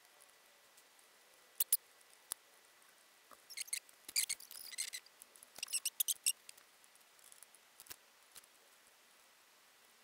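Small hand-held blade cutting and paring a small workpiece: a few sharp clicks, then two quick flurries of crisp cutting and scraping strokes in the middle, then a few scattered clicks.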